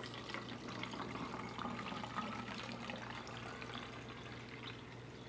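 Cold water poured from a pitcher into a plastic infuser water bottle packed with fruit, a steady stream filling the bottle, easing slightly toward the end.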